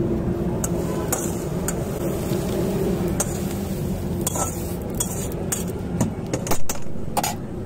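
Metal utensil clinking and scraping against a cooking pan as egg bhurji is scooped out and served: a string of sharp clinks, with a louder knock a little over six seconds in, over a steady low hum.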